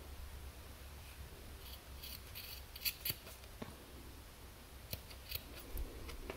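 Scissors snipping through macrame cords: a run of short, quiet snips about two seconds in, and a few more near five seconds.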